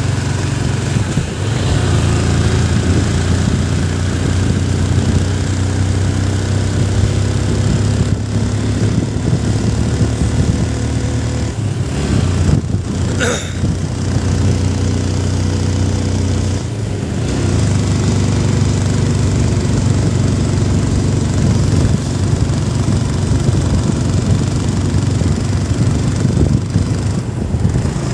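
Motorcycle engine running steadily while the bike rides along at an even speed, over rushing wind and road noise. A short sharp click about halfway through.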